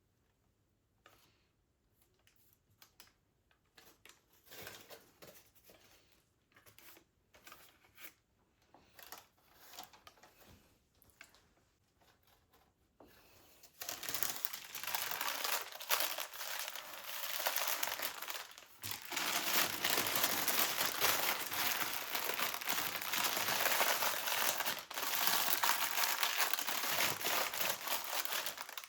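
Faint scattered handling noises, then from about 13 seconds in a dense, continuous crinkling and crackling.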